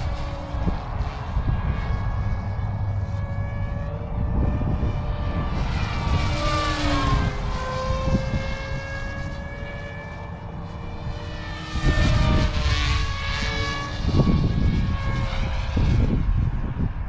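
SAB Mini Comet electric RC helicopter in flight at high head speed: a steady whine of motor and rotor blades. It swells and bends in pitch twice as the helicopter sweeps past, about six seconds in and again about twelve seconds in, over a low rumble.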